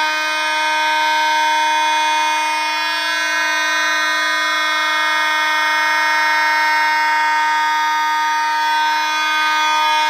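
Vintage vibratone fire alarm horns, a Kidde FH104 and an ADT B3407, sounding on continuous: a very loud, steady, unbroken tone with many overtones. They are powered by filtered DC from 9-volt batteries instead of the panel's unfiltered rectified power, so they sound as they should.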